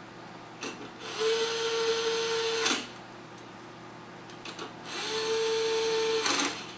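Cordless power screwdriver running twice for about two seconds each, at a steady pitch, each run cutting off with a short clatter: it is driving in the screws that fasten the patch code decoder unit in a Canon DR-G1130 scanner. Heard played back through computer speakers.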